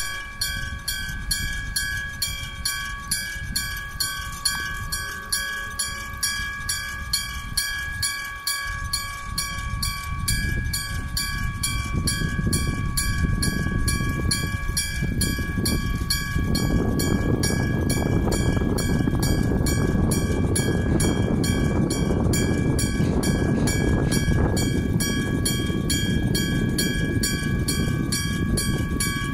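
Japanese level-crossing warning bell ringing steadily at about two strokes a second, while a freight train approaches with a growing rumble and passes from about halfway through, its low rumble then the loudest sound.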